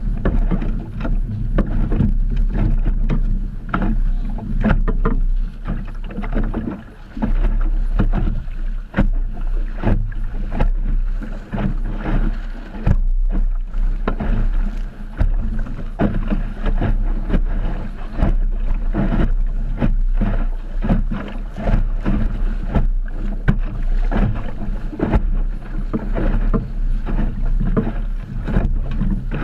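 Wind buffeting the microphone as a low, heavy rumble, with water slapping and splashing against the hull of an Optimist dinghy sailing in choppy water: many short, irregular knocks and splashes throughout.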